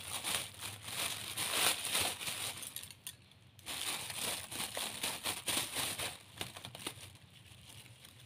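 Thin clear plastic bag crinkling and rustling as it is handled and cut open with scissors. The crackling is densest over the first three seconds, stops briefly, comes back, and grows fainter after about six seconds.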